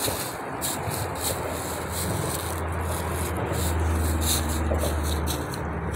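Cord and poncho fabric rubbing and rustling as they are handled, in a string of short irregular scrapes, over a steady rumble of road traffic.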